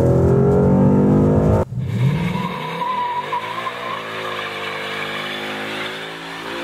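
Ford Mustang GT's 5.0-litre V8 revving hard with rising pitch. After an abrupt cut it runs at high revs through a burnout, with the rear tyres squealing partway through.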